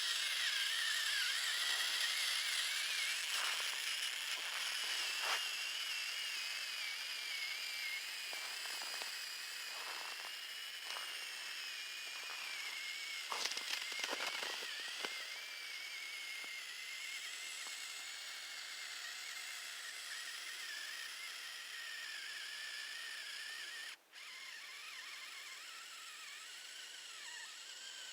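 RC truck's motor and drivetrain whining, the pitch wavering up and down with the throttle, with scattered crackles and scrapes that bunch together about halfway through. The sound briefly cuts out near the end.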